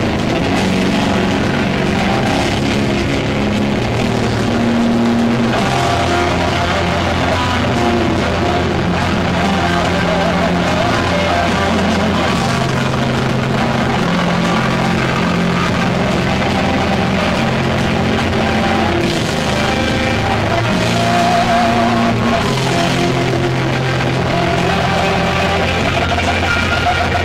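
Heavy metal band playing live, loud and steady: a distorted electric guitar riffs in long, held chords over the rest of the band.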